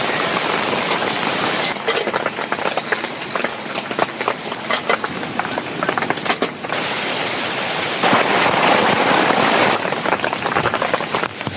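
Rain falling, with many close individual drops tapping. The rain sound changes abruptly a few times, from a dense hiss to sharper scattered taps and back.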